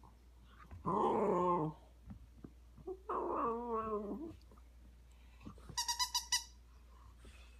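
Puppy making two drawn-out, wavering growl-like vocal noises, each about a second long, then a quick run of high squeaks from a squeaky toy about six seconds in.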